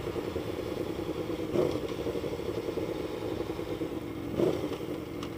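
Aprilia Tuono V4's V4 engine through its GPR Thunderslash exhaust, running steadily while the bike cruises at low road speed, with two brief louder moments about one and a half and four and a half seconds in.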